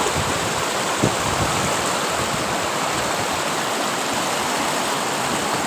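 Floodwater rushing in a fast, muddy torrent across a road, a steady loud noise of churning water.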